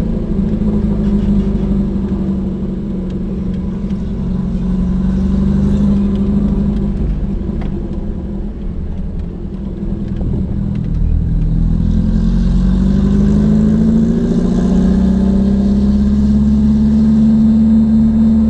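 Volvo 242GL engine and exhaust through a new muffler while driving: a steady low drone that drops in pitch and eases off about halfway through, then climbs again as the car pulls and holds speed.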